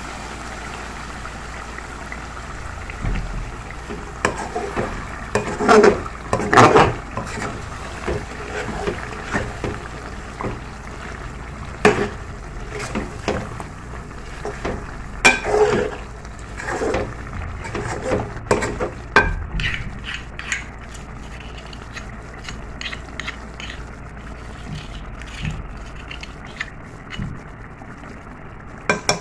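A metal spatula stirring thick chicken curry in a metal pot, scraping and knocking against the pot in irregular strokes over a steady low hiss. The strokes come thickest in the first two-thirds and thin out near the end.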